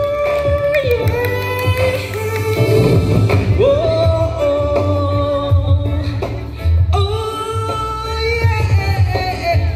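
A man singing into a microphone over a pop backing track with a steady bass beat and held, gliding melody notes.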